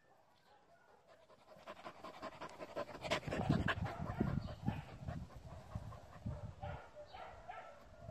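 Dog panting rapidly, starting about a second and a half in and heaviest around the middle, then easing.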